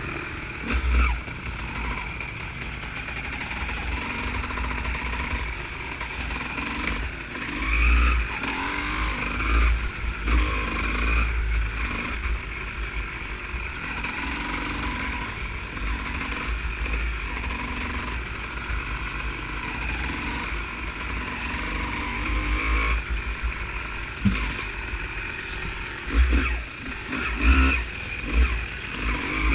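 Honda CR250 two-stroke motocross bike engine running while riding, revs rising and falling with the throttle. Gusts of wind buffet the microphone now and then.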